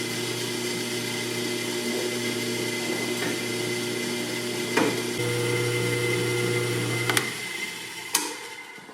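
A 1989 Delta 14-inch drill press running free with a steady motor hum, switched on for a first test. There is a click about five seconds in, and another about seven seconds in, after which it winds down over the last two seconds.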